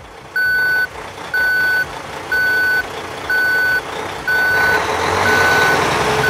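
Truck reversing beeper sounding a steady single-pitch beep about once a second, while the truck backs up. The rumble of the truck grows louder in the second half.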